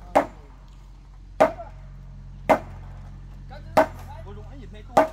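A heavy long-handled hammer striking the timber beams of a wooden house frame from below, five sharp blows about a second apart, knocking the frame's joints together.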